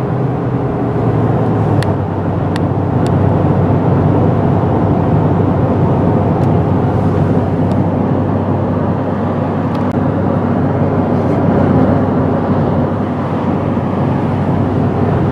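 Car driving on the road, heard from inside the cabin: steady engine hum and tyre and road rush, with a few faint clicks in the first few seconds.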